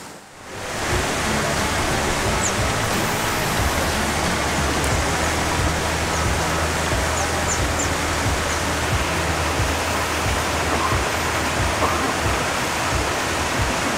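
Steady rush of churning, splashing pond water, rising in over the first second and then holding level.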